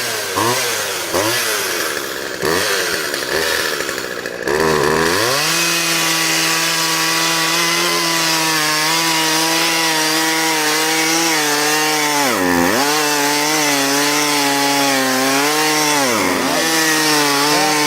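Chainsaw engine revved in short blips, then held at high revs cutting into a tree. Twice the revs dip briefly and pick back up.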